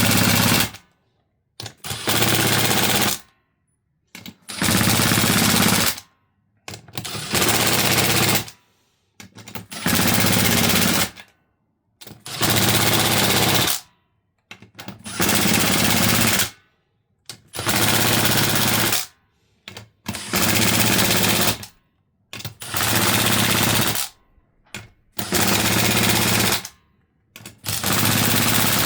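1/4-inch impact on its lowest setting, hammering in about a dozen bursts of a second or so each with short pauses between them, as it runs down the bolts of a bead lock ring one by one.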